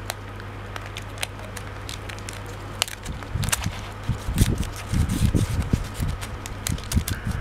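Aluminium foil crackling and crinkling as a knife blade slits open a foil-wrapped package, with sharp crinkles throughout and low handling thumps from about three seconds in.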